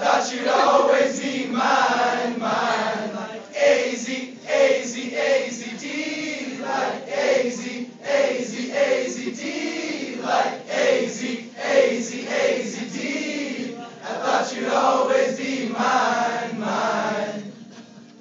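A group of young men singing a song together, a few dozen voices at once; the singing stops shortly before the end.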